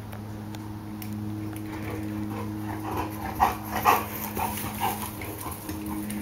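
Dog whimpering and yipping in a string of short cries, the loudest two a little past three seconds in and near four seconds, over a steady low hum.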